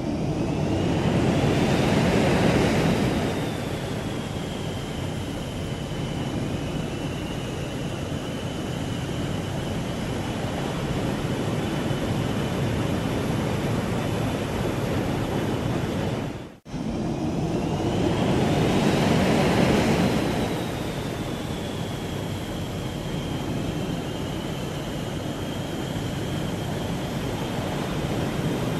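Jet aircraft engine revving up: a rising high whine climbs over a loud roar, peaks, and settles into a steady high whine over the running roar. The sound cuts out abruptly about 17 seconds in and the same run-up plays again.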